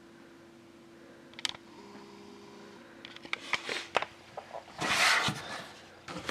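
Hands handling a trading-card tin and cards: a single click, then a few quick clicks and taps, and a louder rustling scrape about five seconds in, over a faint steady hum.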